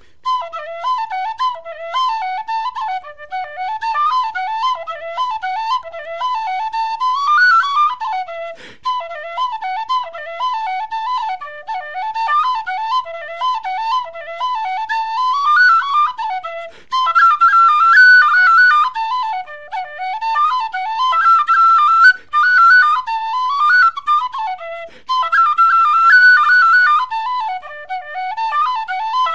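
Background music: a solo whistle playing a lively, fast-moving melody.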